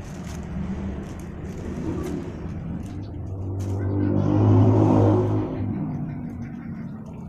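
A motor vehicle passing by: its low engine hum swells to a peak about halfway through and then fades away.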